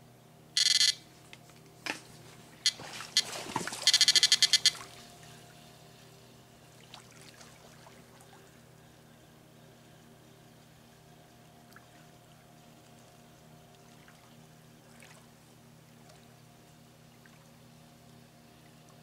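Electronic carp bite alarm on a rod pod beeping: one short beep about half a second in, then a fast run of beeps around four seconds in, the signal of a fish taking line. A steady low hum runs underneath.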